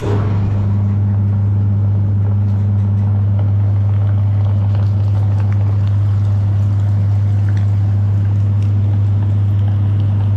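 Electric meat grinder motor running with a loud, steady low hum that starts abruptly right at the beginning, as jelly is fed through it.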